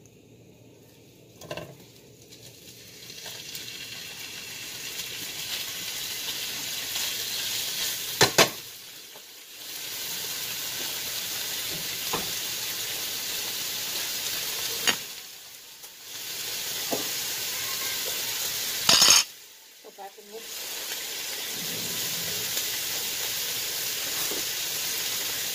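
Pieces of ribeye steak sizzling in a hot frying pan over a gas burner, the sizzle building over the first few seconds. Sharp clatters against the pan come about eight seconds in and again near nineteen seconds, and the sizzle drops away briefly a few times.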